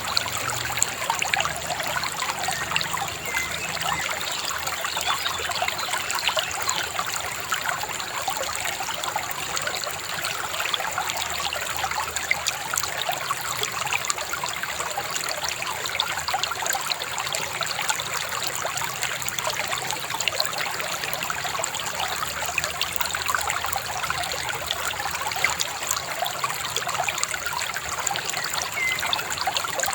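Shallow river babbling and trickling over stones, a steady, continuous gurgle of water, with a faint thin high tone held throughout.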